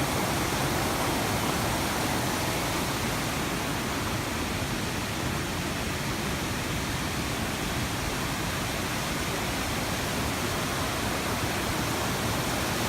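Fast-flowing river water rushing at a waterfall, a steady even noise that does not change.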